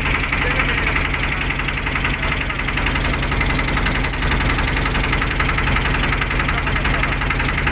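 A motorboat's engine running steadily with a fast, even beat.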